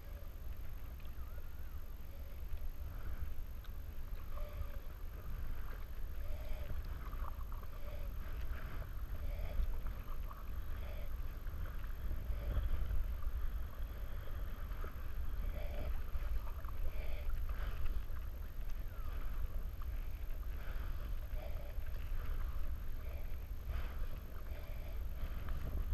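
Double-bladed kayak paddle dipping and pulling through lake water, with small splashes and drips from the blades against a steady low rumble.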